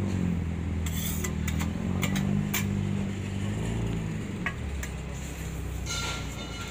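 A motor vehicle engine running, a low hum whose pitch rises and falls and shifts about four seconds in, with a few sharp metal clicks of cooking utensils on a flat-top griddle between one and five seconds in.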